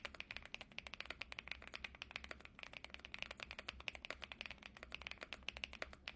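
Fast typing on a Feker Galaxy 80 mechanical keyboard fitted with WS Palm+ linear switches. It is a dense, continuous patter of key clicks, the creamy-sounding keystrokes of a sound test.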